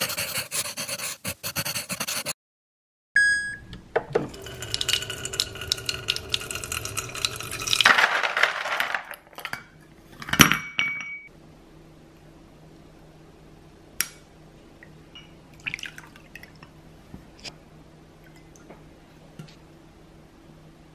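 Kitchen sounds: a short clatter, then water running into a container for several seconds, swelling louder just before it stops, and a dish set down with a sharp knock. Light clinks and taps follow.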